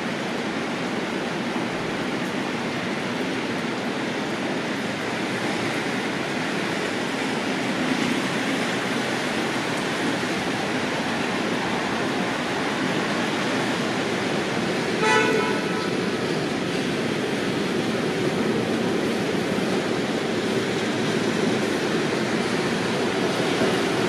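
Steady background hum of city traffic, with one short car horn toot about fifteen seconds in.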